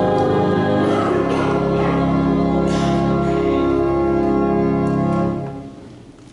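Church organ playing sustained chords; the music ends about five seconds in and dies away.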